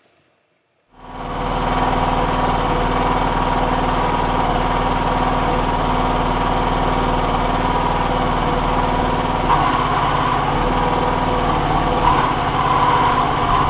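The towable backhoe's small gas engine running steadily, driving its hydraulic pump. About nine seconds in, and again near the end, a higher note rises over the engine as the hydraulics are worked. This is the noise the owner suspects comes from a badly set relief valve or too little hydraulic fluid.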